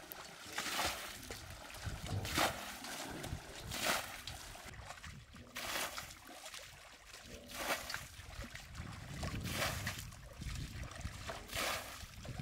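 Water splashing in a steady rhythm, about seven swishing splashes roughly every one and a half to two seconds, like water being scooped or slapped by hand in a shallow pool.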